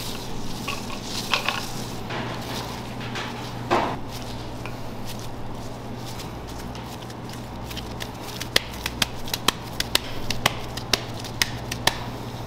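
Gloved hands working raw ground beef: soft squishing and rustling of the mince, then, from about two-thirds of the way in, a quick irregular run of sharp slaps as a ball of beef is patted and squeezed between the palms. A steady low hum sits underneath.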